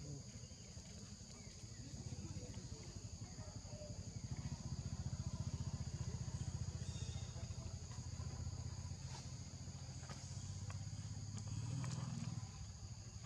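Steady high-pitched insect chorus holding two constant tones, over a low rumble that swells in the middle and again near the end, with a few faint clicks.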